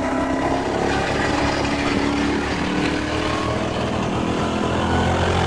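A vehicle engine running steadily, its pitch drifting slightly up and down.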